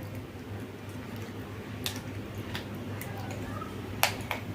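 A few scattered small clicks and taps, the sharpest about four seconds in, over a steady low hum.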